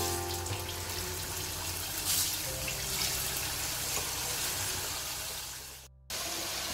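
Turmeric-marinated chicken pieces sizzling in hot oil in a wok as more pieces are dropped in by hand: a steady frying hiss that cuts out for a moment near the end.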